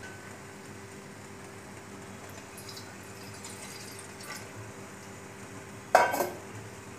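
Water poured from a steel jug into a steel pot, a faint splashing trickle, then a sudden sharp knock about six seconds in.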